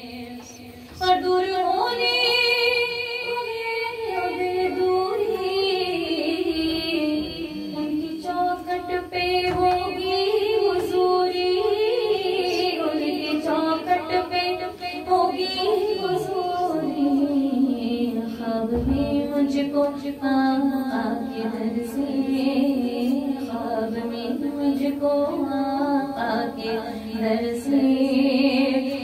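A woman singing a naat, a devotional song in praise of the Prophet Muhammad, into a handheld microphone. She comes in about a second in, singing long held notes that bend and waver in pitch.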